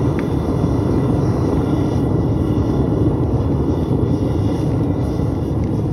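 Aluminium-melting furnace's burner running with a steady, deep rumble.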